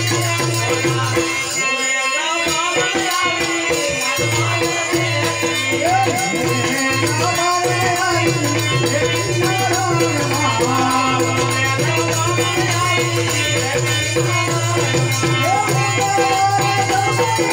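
Amplified live folk music: a steady low drone with fast rattling percussion, and a melody sung into a microphone.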